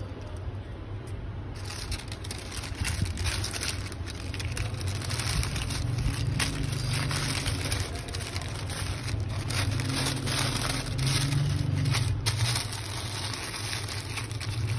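Paper crinkling and rustling in irregular bursts as hands fold and press a sheet of wrapping paper around a shawarma roll, starting in earnest about a second and a half in. A steady low hum runs underneath.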